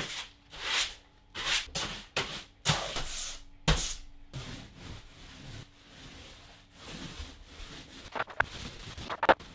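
Paint roller loaded with matt emulsion being rolled up and down a wall, each stroke a swishing rub. About four seconds in, the quick loud strokes give way to softer, steadier rolling, and a few sharp clicks come near the end.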